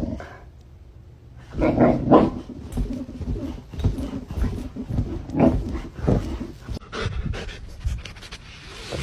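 A dog panting and making short noises in irregular bursts.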